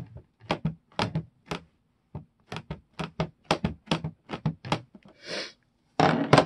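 Ink pad dabbed again and again onto a plastic embossing folder to ink it up: a run of short light taps, two or three a second, with a brief rub about five seconds in and a louder clatter near the end.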